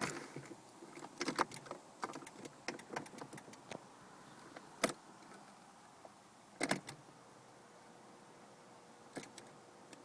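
Car keys clicking and jangling in scattered light clicks and knocks, with the Renault Clio's engine not turning over. A faint steady whine starts about seven seconds in.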